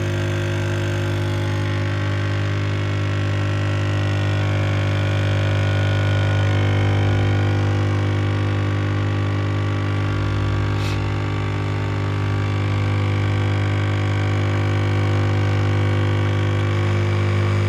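Capsule coffee machine running, its pump giving a loud, steady buzzing hum while it brews.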